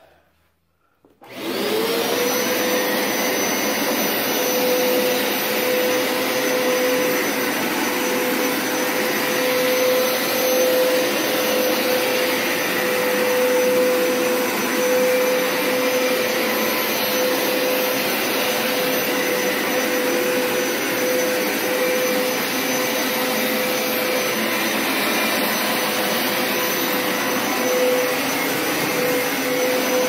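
Hoover Power Scrub Deluxe FH50150 carpet washer switched on about a second in, its motor spinning up with a quick rising whine. It then runs steadily, a constant whine over rushing suction, during a rinse pass over the carpet.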